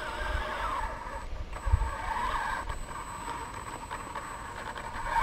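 RC crawler truck's electric motor and gears whining as it crawls over rock and dirt, the pitch rising and falling with the throttle, with one low bump about two seconds in.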